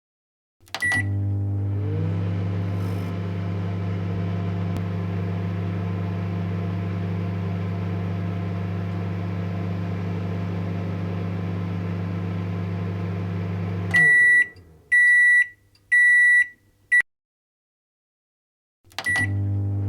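Microwave oven starting with a short beep, then running with a steady low electrical hum and fan noise for about thirteen seconds. It stops and gives three beeps and a short fourth, the end-of-cycle signal. Near the end it starts again with a beep and the hum.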